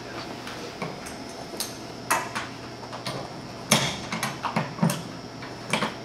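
Scattered small clicks and knocks of hands working the brass quick-connect fittings of a mini-split outdoor unit: dust caps coming off and the line set's copper end being brought up to the fitting. The loudest knock comes about two-thirds of the way through.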